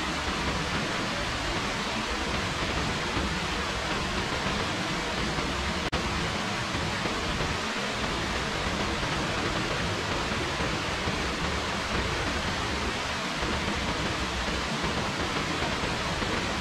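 Steady rain falling, an even hiss, with a faint click about six seconds in.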